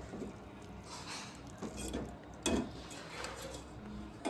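Faint, occasional clinks and knocks of dishes and utensils at a meal, with a quiet room background between them.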